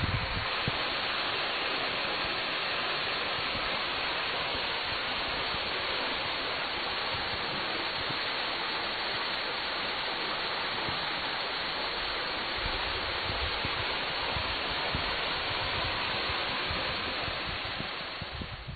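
Steady rush of falling water from the Salto de la Estanzuela waterfall, fading out at the very end.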